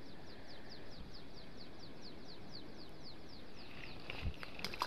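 A bird calling: a long run of short, high, downward-sliding notes, about six a second, over faint outdoor background, with a couple of small handling clicks near the end.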